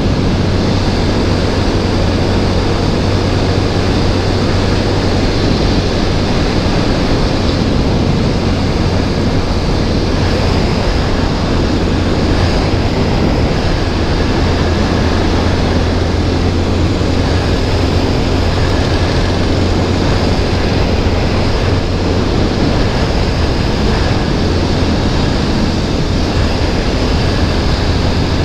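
TVS Apache RTR 200 4V's single-cylinder engine running at a steady highway cruise, mixed with heavy wind rush on the helmet-mounted microphone. The sound stays even throughout, with no revving or gear changes.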